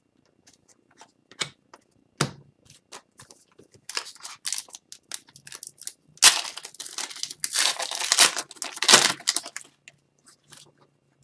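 A pack of Upper Deck hockey cards being torn open by hand, the wrapper crinkling and tearing in loud noisy bursts over the second half, after a few light clicks and rustles.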